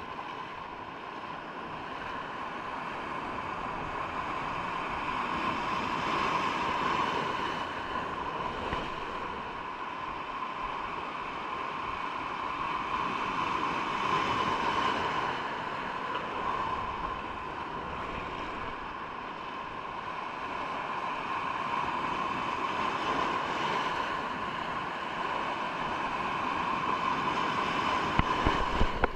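Sea waves rushing and washing in slow swells about every eight seconds, with wind on the microphone. A few sharp knocks come near the end.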